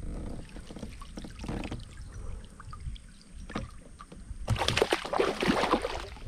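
Small knocks and faint water sounds, then about four and a half seconds in, a loud stretch of water splashing and sloshing for about a second and a half as a mesh keepnet is worked in the water at the kayak's side.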